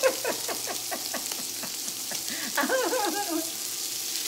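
Diced andouille sausage sizzling steadily in oil as it browns in a nonstick pot, with a utensil stirring the pieces near the end.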